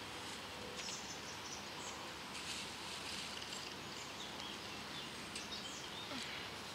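Steady outdoor background hiss with faint, scattered high chirps of small birds.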